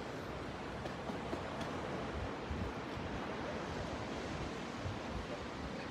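Steady outdoor wash of sea surf and wind, with no distinct events.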